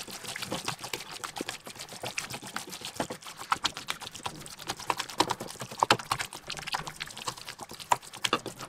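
Hands kneading and squeezing a wet mixture of milk-soaked stale bread, beaten eggs and rum-soaked raisins, giving many short, irregular squelches and clicks.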